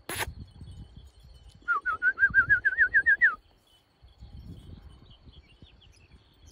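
A person whistling a quick warbling trill of about a dozen wavering notes, rising slightly and lasting over a second, to call a dog back. Two sharp clicks come just before it.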